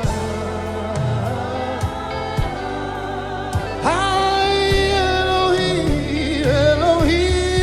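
Slow gospel worship song: singing holds long, wavering notes over a steady, low band accompaniment.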